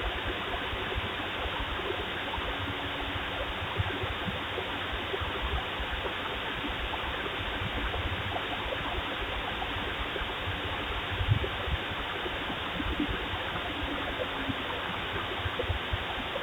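Steady hiss from a home security camera's microphone, dull and cut off in the highs, with uneven low rumbles underneath; the flash of light makes no sound of its own.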